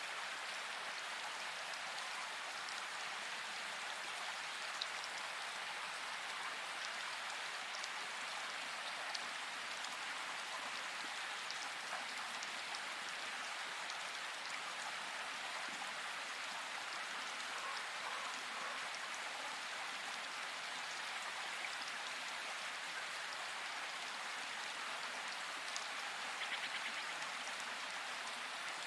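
Steady rain falling in a forest, an even hiss with scattered sharper drop ticks and a brief louder patter of drops near the end.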